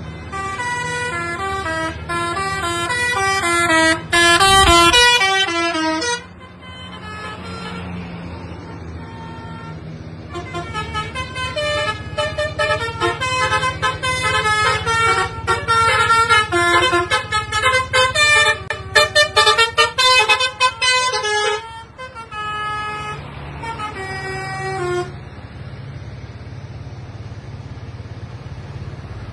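Tour buses' 'telolet' musical air horns (Basuri) playing fast multi-note tunes over the low hum of bus engines. One loud run of tunes fills the first six seconds. After a short gap, a longer stretch of tunes follows from about ten seconds in, and a brief tune comes near the end.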